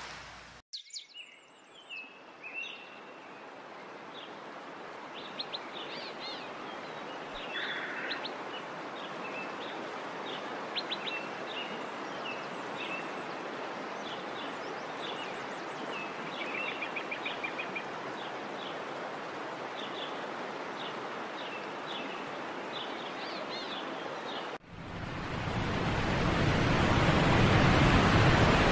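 Birds chirping and trilling in short repeated calls over a steady hiss of moving water. About twenty-five seconds in it cuts suddenly to a much louder, steady rush of water pouring over a dam spillway.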